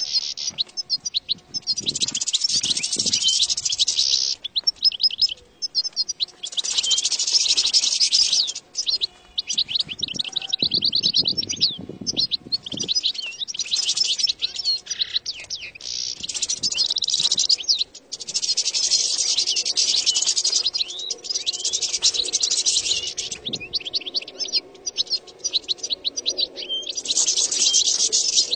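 European goldfinch song: fast runs of rapid high notes in phrases of one to two seconds, repeated with short breaks between.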